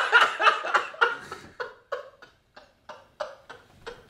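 Men laughing: a loud burst at first, then a run of short bursts of laughter that grow quieter and further apart as it dies away.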